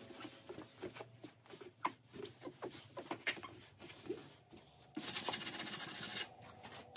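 A paper towel wiping a glass tabletop, rubbing with short squeaks as it drags on the glass. About five seconds in, a louder rasping of a sponge scrubbing the painted wooden shelf below, lasting about a second.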